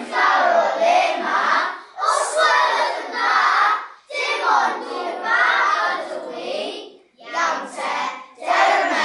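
A class of young children chanting lines of a story together in Welsh, in unison, in phrases a second or two long with short breaks between them.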